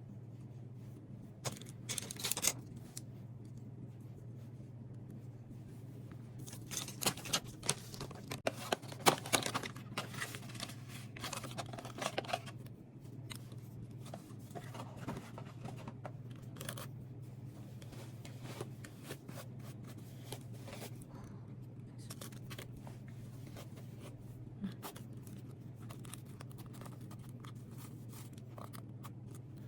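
Scattered rustling and clicking handling noises in a few bunches, the busiest stretch a few seconds in, over a steady low hum.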